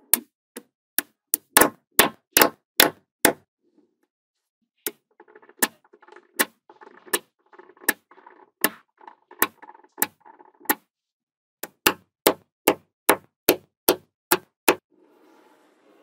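Small magnetic balls snapping onto a wall of magnetic balls: a run of sharp clicks, a softer clatter of balls shifting among the clicks in the middle, then a regular run of clicks about two or three a second near the end.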